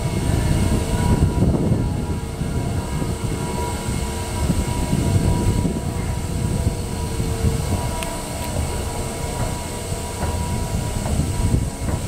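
A 1991 Mitsubishi J-series escalator running, with a steady mechanical rumble from the moving steps and drive and a faint steady hum over it.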